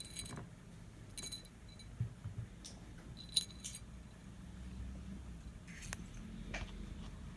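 Small metal clock-movement parts and tools clinking and tapping as they are handled, a few separate light metallic clicks spread across several seconds.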